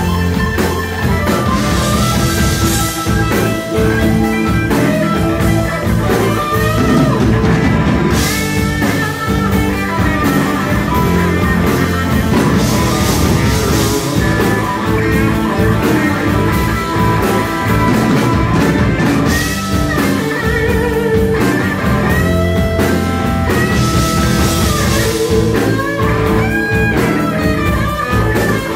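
Live blues-rock band playing an instrumental passage: electric guitar lead with bending notes over bass guitar and a Tama drum kit.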